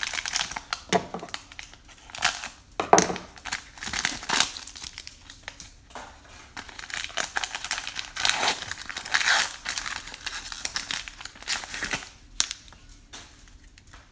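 Wrapper of a Score football trading card pack crinkling and tearing as it is ripped open by hand, in irregular bursts of crackle.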